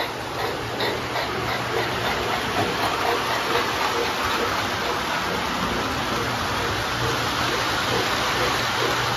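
Lionel O-gauge Chessie System steam train, the 2-8-4 Berkshire No. 8003 with its yellow cars, running on three-rail track: a steady rolling rumble with a faint regular beat.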